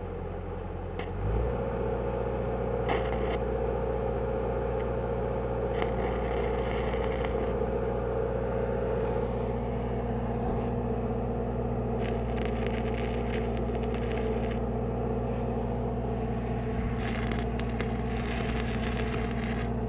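Stick-welding arc from a 1/8-inch 6010 rod crackling and sizzling in a few short bursts while tacking a plate onto a thin gate rail. Under it is the steady hum of the running welding machine, which picks up speed about a second in.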